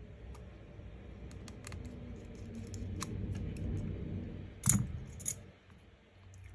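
Scattered light clicks and small metallic ticks of precision repair tools on an opened iPhone 13 Pro, as its screws and metal cover plate over the Face ID connector are removed, with a louder click about four and a half seconds in and another just after.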